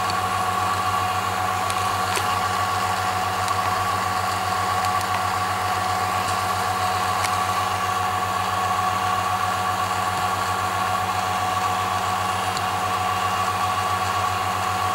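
Vacuum pump running steadily for the glow-discharge jar: an even low hum with a constant high whine above it.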